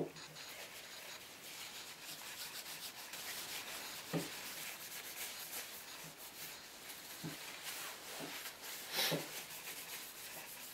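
Rag rubbing linseed oil onto an antique wooden plough plane, a continuous rubbing, with a few soft knocks as the plane is handled, the loudest about four and nine seconds in.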